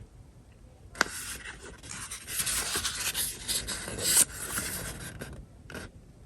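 Paper rustling and rubbing as the pages of a user manual are handled and turned. It starts with a sharp click about a second in, runs about four seconds, is loudest a little after four seconds, and has one short rub near the end.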